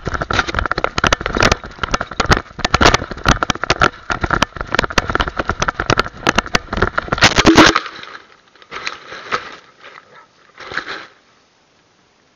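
Crackling and scraping from a small camera microphone strapped to a dog's back, rubbing against fur, harness and long grass as the dog runs and rolls. The dense clicking stops abruptly about eight seconds in, and a few short scuffles follow.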